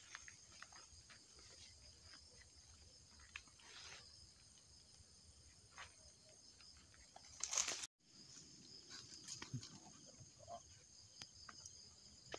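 Faint night chorus of crickets: a steady high-pitched hum. Over it come scattered soft footsteps and rustling of people walking through vegetation, with a louder rustle about three-quarters of the way through and then a brief dropout.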